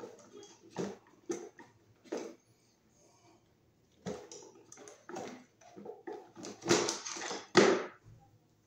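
Irregular small clicks, taps and scrapes of hands and tools working the mounting hardware of a wall light fixture, with two louder scrapes near the end.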